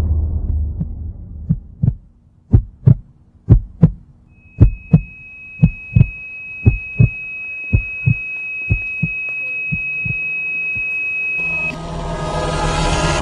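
Heartbeat sound effect: paired lub-dub thumps about once a second, growing fainter. A steady high ringing tone sounds through the middle, and near the end a louder rushing rumble comes in.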